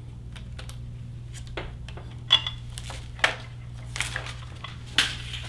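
Thin plastic protective film being peeled off a sheet of FEP release film, crinkling and crackling in short irregular bursts, with a few louder crackles.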